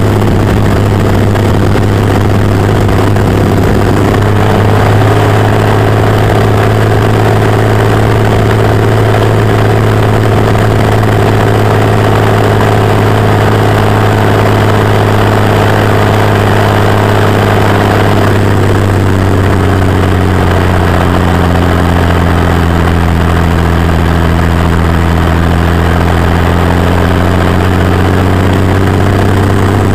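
Mercedes-Benz MB trac 1400 turbo tractor's turbocharged diesel engine running steadily as the tractor drives along the road, heard close to the exhaust stack. About two-thirds of the way through, the engine note drops and settles lower.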